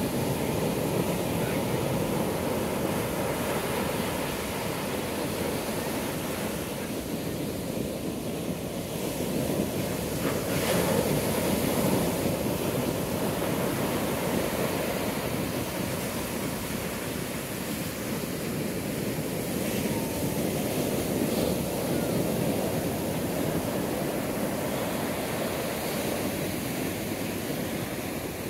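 Ocean surf breaking and washing up a sandy beach: a steady rush of waves from a passing hurricane's swell, swelling a little about ten seconds in.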